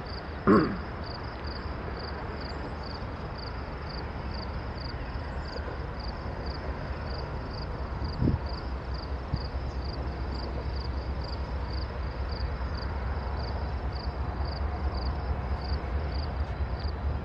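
Three Norfolk Southern diesel locomotives approaching slowly, a low engine rumble that grows gradually louder. A short sharp sound about half a second in and a knock about 8 s in. A high insect chirp pulses steadily about one and a half times a second.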